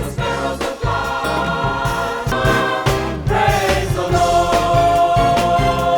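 Upbeat gospel-style music with a choir singing over a steady beat, ending on a long held note.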